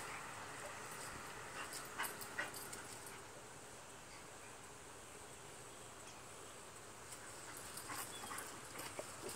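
Two dogs play-wrestling: faint dog noises and scuffling in short spells, about two seconds in and again near the end, with a quieter lull between.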